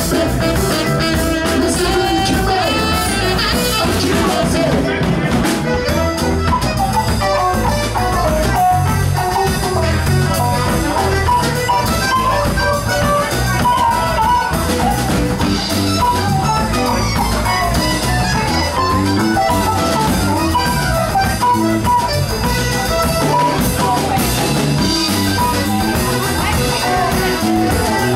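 Live band playing Latin rock: saxophone over electric guitar, bass guitar, keyboards and drum kit, with a steady beat.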